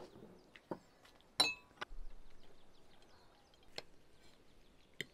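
Utensils clinking and tapping against a porcelain plate and pan a few separate times, the loudest a sharp clink with a brief ring about a second and a half in.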